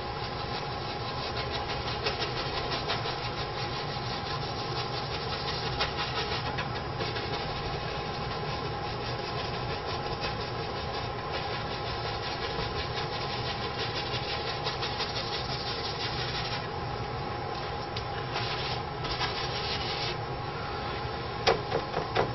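Paintbrush scrubbing and dabbing oil paint onto canvas in quick, even rubbing strokes over a steady background hum. The strokes thin out in the last few seconds, and two sharp knocks come near the end.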